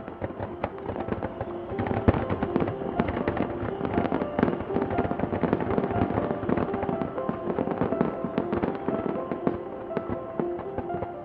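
Fireworks display: a dense, continuous stream of bangs and crackling pops, many a second, building up over the first two seconds.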